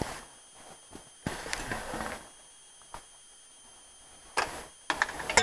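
Camera handling noise: scattered rustles, scuffs and knocks, with a longer rustle about a second in.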